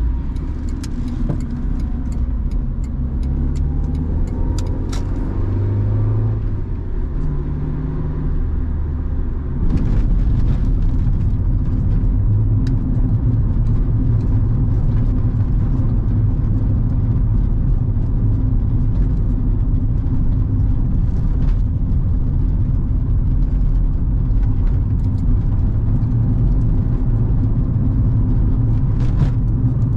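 Inside the cabin of a 1997 Honda Civic while driving: its 1.4-litre four-cylinder petrol engine and the tyres on the road. The engine note shifts in pitch several times early on. About ten seconds in it becomes a louder, steady cruise drone, with occasional short ticks from the road surface.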